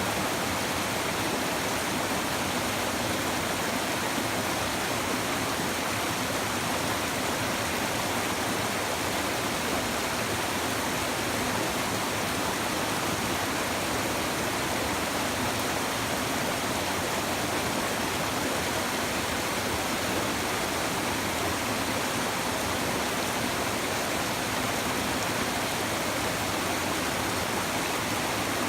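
Shallow river babbling over stones, a steady, unbroken rush of flowing water with no change.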